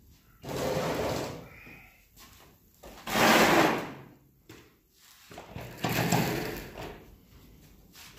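Heavy G1021 thickness planer dragged across a surface in three scraping slides, each about a second long, the middle one the loudest.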